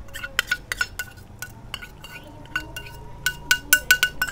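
A metal spoon scraping and tapping against a metal bowl, a quick run of short ringing clinks that come thickest near the end, as masala paste is scraped out of the bowl.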